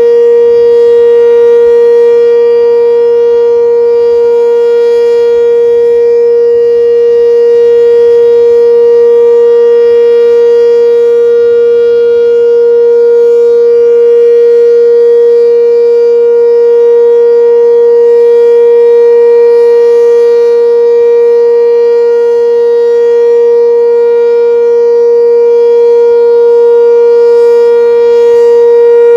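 Sentry 7V8 eight-port, non-rotating omnidirectional warning siren sounding the steady Alert signal: one loud, unwavering tone with no rise or fall.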